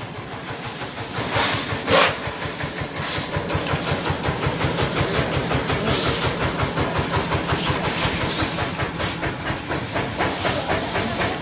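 Power tiller's small diesel engine running with a rapid, even chugging, with a few short, louder rushes of hiss in the first three seconds.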